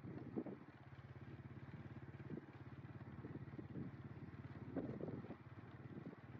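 An engine running steadily with a low, fast, even pulse, with scattered light knocks and rustles over it, the loudest about half a second in and about five seconds in.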